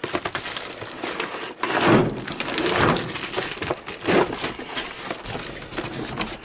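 Packaging rustling and crinkling as parts are taken out of a box, with a rough, crackly handling noise that rises and falls.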